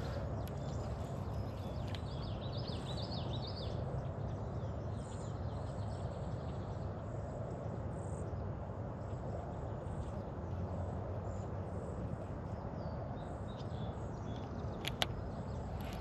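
Waterside outdoor ambience: a small bird chirps a quick run of notes a few seconds in, over a steady low rumble, with faint high chirps scattered through. A single sharp click sounds near the end.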